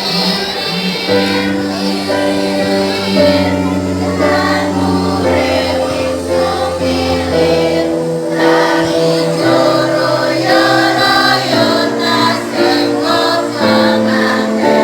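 A school children's choir singing a song in held, changing notes over steady low instrumental accompaniment.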